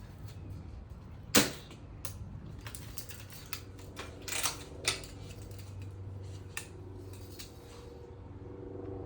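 Daisy Red Ryder lever-action BB gun firing once with a sharp crack about a second and a half in, followed by several lighter clicks and taps.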